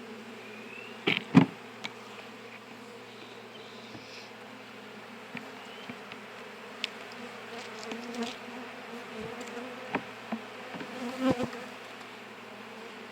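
Honeybees buzzing steadily around an opened hive, with a few sharp knocks, the loudest about a second in.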